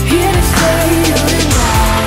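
Pop music with drums and a melody line gliding up and down.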